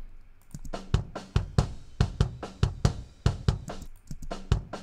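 Raw, unprocessed pop-punk drum multitrack played back, centred on the kick drum's inside and outside mics: tight, punchy kick hits in quick succession with snare and cymbals audible, starting about half a second in.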